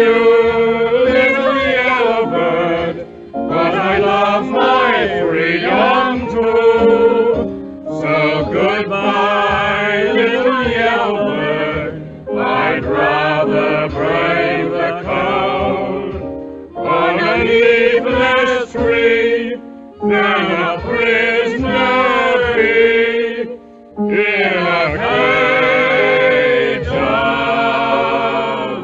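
Singing over musical accompaniment, in sung phrases a few seconds long with brief breaks between them.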